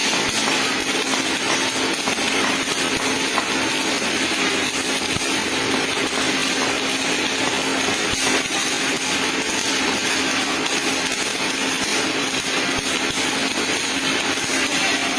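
MIG (gas metal arc) welding arc crackling steadily as the wire feeds into the weld pool, with a low steady hum underneath.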